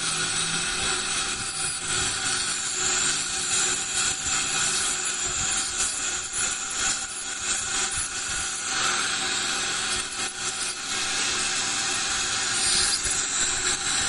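Ultrasonic dental scaler scraping tartar off the lower front teeth, with a saliva ejector sucking alongside: a steady hiss with a high whine.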